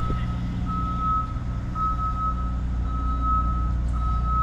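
An electronic beeper sounding one steady high-pitched beep about once a second, over a constant low hum.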